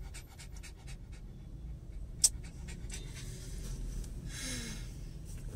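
Shih Tzu panting quickly in short, rapid breaths. A single sharp click sounds about two seconds in.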